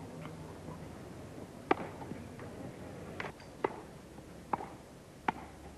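Tennis ball being hit back and forth with rackets during a rally: five sharp pocks, unevenly spaced over about four seconds, over a faint steady background hiss.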